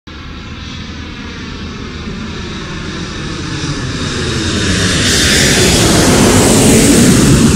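Logo-intro sound effect: a steady whoosh of noise that builds gradually louder, swelling into a bright rush about two thirds of the way through.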